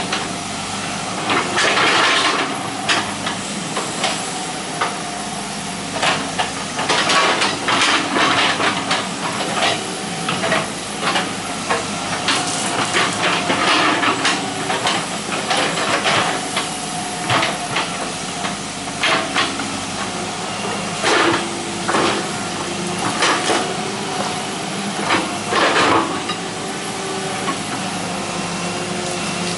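Hitachi EX120 hydraulic excavator working: a steady diesel engine hum and hydraulic hiss, broken by irregular clanks and scrapes as the bucket and boom dig and dump soil.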